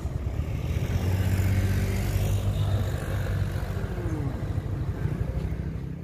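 Motor vehicle engine running with a steady low rumble as the vehicle is parked, dying away near the end.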